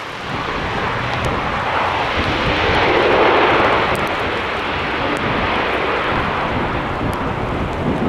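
ATR 72 twin-turboprop's engines and propellers running as it rolls out after landing on a wet runway, a steady roar that swells loudest about three seconds in, then eases slightly.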